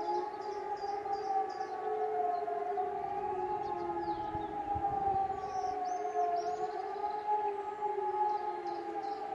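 Civil-defence sirens, an E57 and a Fischer FS600, sounding the German 'Warnung der Bevölkerung' public-warning signal during a routine siren test. A wailing chord of two tones drifts slowly up and down in pitch.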